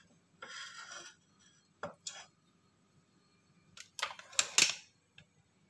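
Quiet kitchen handling sounds: a couple of light clicks, then a short cluster of metallic clinks and rustling about four seconds in as a wire-mesh strainer of fried fritters is lifted off a steel wok.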